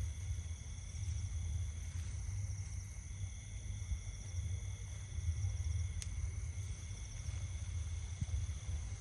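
Wind buffeting the microphone with a low rumble, over a steady high-pitched chorus of insects trilling at several pitches. One faint click about six seconds in.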